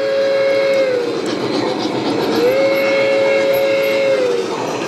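SoundTraxx Tsunami2 sound decoder in a G-scale Bachmann Shay sounding its steam whistle through the locomotive's speaker. There are two long blasts: the first ends just under a second in, the second starts a little after two seconds. Each drops in pitch as it dies away, over a steady noisy background of the locomotive's running sounds.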